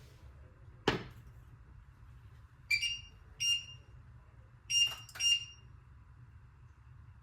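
A kitchen appliance's electronic beeper: a sharp click, then four short, high beeps in two pairs, like the button tones of a microwave or a touch-control hob being set.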